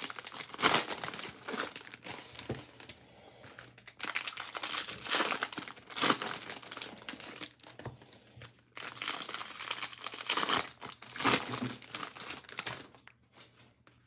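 Trading card pack wrappers crinkling and rustling as packs are torn open and cards handled, coming in several bursts and falling away near the end.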